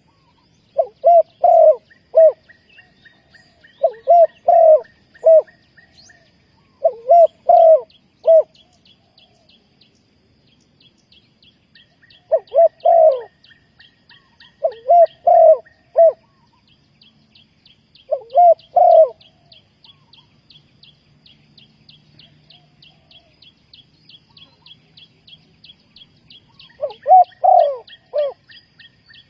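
Spotted dove cooing: repeated short phrases of three or four low, throaty coos, about one phrase every three seconds, with a long pause in the middle and a louder phrase near the end. A fast, high ticking trill runs faintly underneath.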